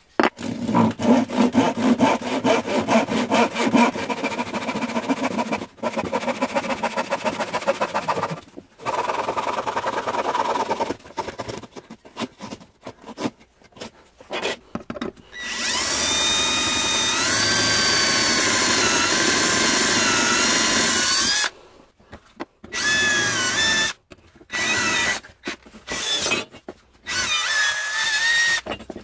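Wood being sawn for the first several seconds, then an electric drill boring into wood: one long run of about six seconds with its pitch sliding up and down, then short trigger bursts.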